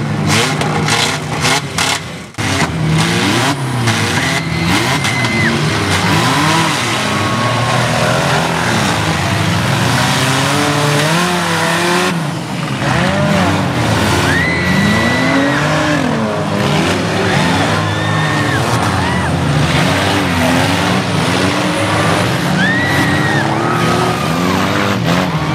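Several compact demolition-derby cars revving their engines hard and unevenly, the pitches rising and falling over each other as they accelerate and ram around a mud pit. A few short high squealing tones sound now and then, and a run of sharp cracks comes in the first two seconds.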